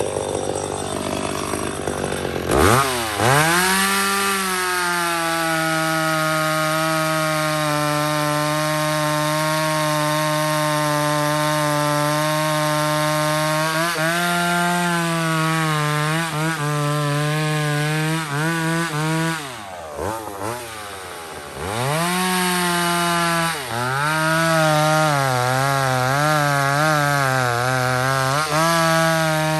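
McCulloch 850 two-stroke chainsaw revved up to full throttle and held at a high steady pitch. About two-thirds of the way through it drops back briefly, then climbs again. Near the end its pitch wavers up and down as the chain works through wood.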